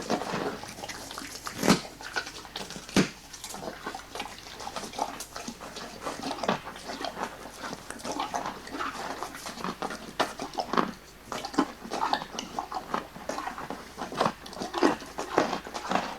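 Sound effect of an animal, dog-like, making a run of irregular, wet, chewing-like noises full of small clicks, with two sharper smacks in the first few seconds.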